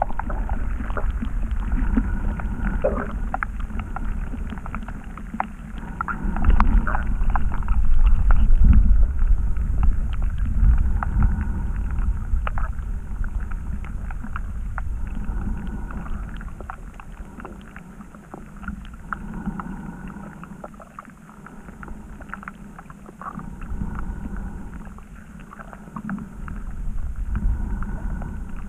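Muffled underwater sound picked up by a submerged camera: a low rumble of moving water with many small clicks and ticks scattered through it. It swells a few seconds in, then eases off.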